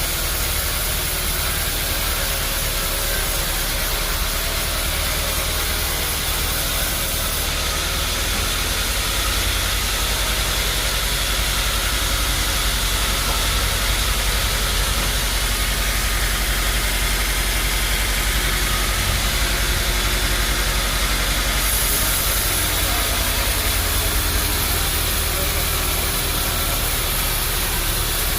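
Sawmill machinery running steadily: a constant low motor hum under an even, hissing noise.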